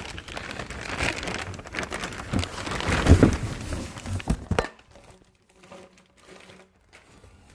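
Crinkling and rustling with several knocks as exhaust parts and their wrapping are handled, loudest about three seconds in. It goes much quieter after about four and a half seconds.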